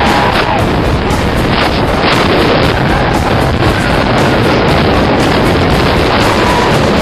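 Loud, steady wind roar on the microphone of a camera carried on a moving roller coaster train, with the rumble of the ride underneath.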